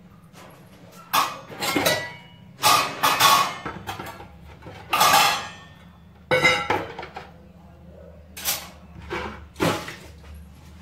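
Steel kitchen utensils and dishes clattering as they are handled and set down: a string of separate clinks and clangs, some with a short ring, the loudest a few seconds in.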